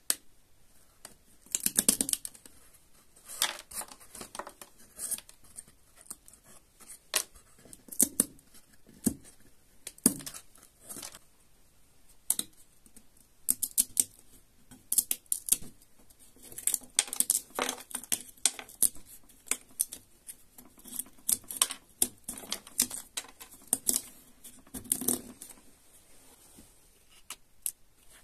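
Thin wooden fins cut into a block, bent and flicked by fingertips, snapping back with irregular dry clicks and short rattling runs.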